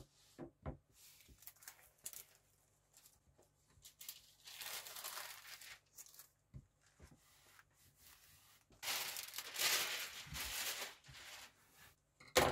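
Rough carpet being handled and rubbed against a plywood panel: two longer scratchy, tearing-like rustles with a few light knocks, and a sharp knock near the end as the board is laid down.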